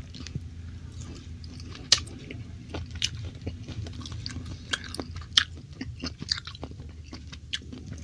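Close-up chewing of hot soy-sauce stir-fried beef, with irregular wet mouth clicks and smacks, two of them louder about two seconds in and past the middle. A steady low hum runs underneath.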